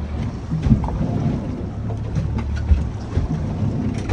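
Boat's outboard motor running steadily at low trolling speed, with wind rumbling on the microphone and a few short knocks.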